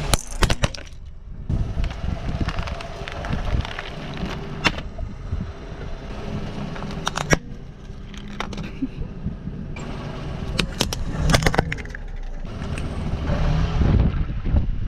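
Car engine running at low speed as the tyres roll over objects, with a few sharp cracks and crunches as things break under the wheels, a cluster of them about two thirds of the way through.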